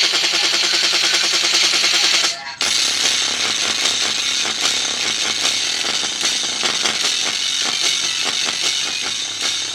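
Music playing loudly through two small 4-ohm, 3-watt speakers driven by a repaired LA4227 stereo amplifier board. It opens with a fast pulsing beat, cuts out for a moment about two and a half seconds in, then goes on. The amplifier is working again after its repair.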